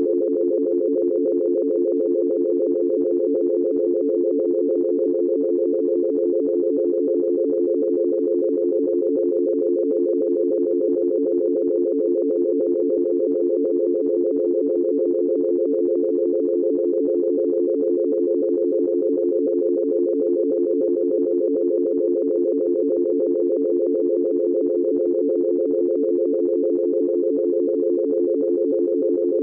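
Futuristic dial tone sound effect: a steady, unbroken pair of low tones with a fast, even wobble where they beat against each other, holding the same level throughout.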